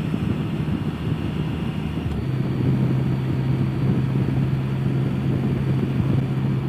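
Can-Am Spyder F3 Limited's three-cylinder engine running at a steady pitch under wind and road noise while riding; about two seconds in the engine note drops to a lower steady pitch.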